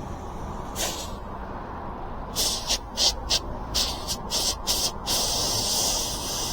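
Air hissing out of an e-bike's front inner-tube valve, first in a string of short spurts and then as a steady hiss; the valve is busted.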